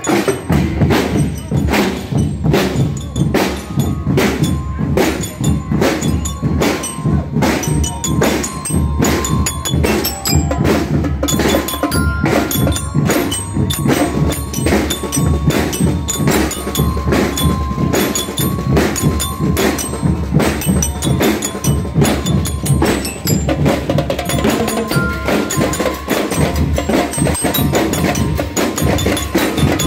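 Marching percussion band playing a steady march beat on snare drums and cymbals, with marching bell lyres ringing out short melodic notes over the drums.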